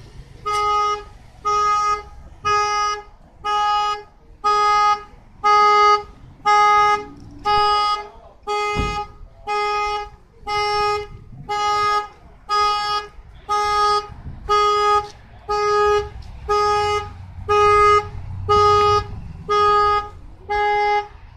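A vehicle horn blaring in a steady, even pulse of about one blast a second, every blast at the same pitch: a car alarm going off through the horn.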